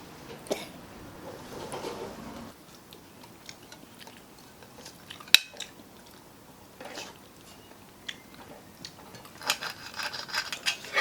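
Scattered light clicks and clinks of cutlery and plates as people eat. There is one sharp click about five seconds in and a cluster of clatter near the end.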